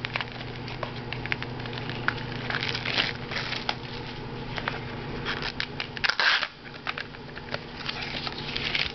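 Foil trading-card pack wrappers crinkling and rustling as packs are handled and opened, with irregular light clicks and one louder crackle about six seconds in.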